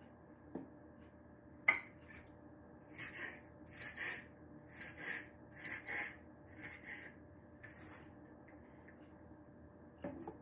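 Kitchen knife cutting a cucumber into pieces on a cutting board: a sharp knock a couple of seconds in, then about seven short cuts at an even pace, roughly one every half second to second, and another knock near the end.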